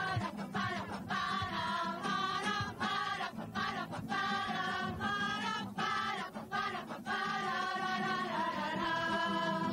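Background music: voices singing together in a slow melody of held notes over a steady low accompaniment.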